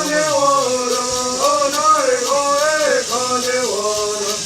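Men singing a Native American Bird Song together, the melody gliding and held in long phrases, over the steady shaking of gourd rattles.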